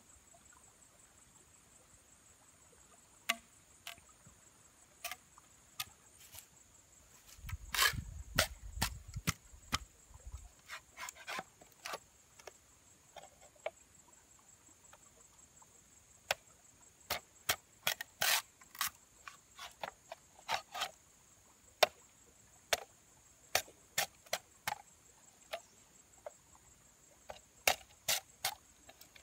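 A blade cutting into a wooden pole by hand: irregular sharp knocks and cracks of wood, coming in quick clusters separated by pauses.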